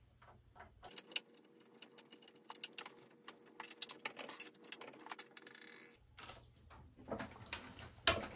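Small metal clicks and clinks of a hex key and screw being worked into the swingarm pivot of an electric scooter. There are scattered light taps throughout, and the sharpest click comes near the end.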